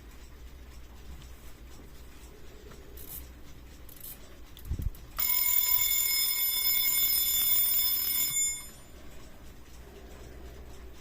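Vintage Cyma Amic Sonomatic 8 alarm clock's alarm ringing for about three seconds, then stopping. It is preceded by a soft low thump, and a few faint small clicks come before it.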